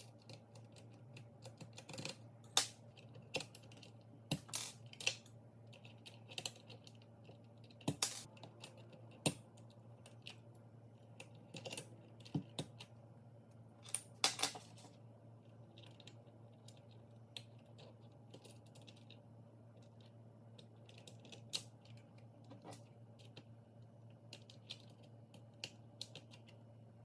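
Keys on a Keychron K6 mechanical keyboard being typed on in an irregular run of clicky keystrokes. The strokes are sharper and louder in the first half and lighter and sparser later.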